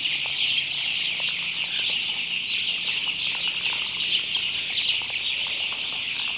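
A large flock of young broiler chicks peeping: a dense, continuous chorus of many overlapping high chirps, with a faint steady low hum underneath.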